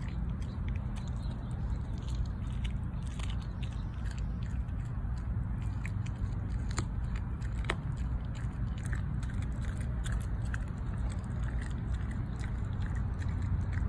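Dog chewing a raw chicken leg quarter, crunching through the bone with irregular sharp cracks and crunches. A steady low rumble runs underneath.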